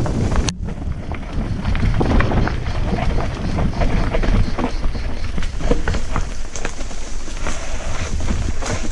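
Mountain bike descending a rough dirt trail at speed: tyres crunching over dirt and loose stones, with many rattling clicks and knocks from the bike and a low wind rumble on the camera's microphone.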